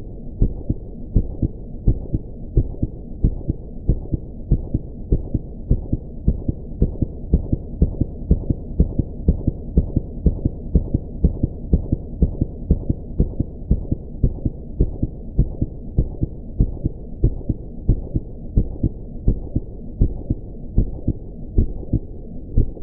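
Heartbeat sound effect: a steady run of deep, dull thumps, a little more than one beat a second.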